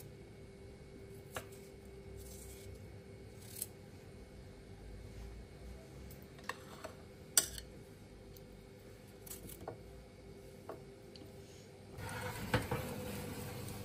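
Scattered light clicks and taps of small household objects being handled, over a faint steady hum; about twelve seconds in, a louder steady hiss comes in.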